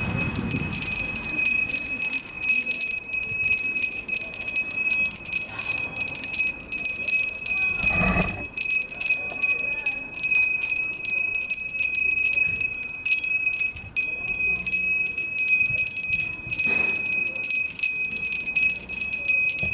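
Bells ringing without pause: a high, steady ring kept going by rapid strikes. A brief dull thump about eight seconds in.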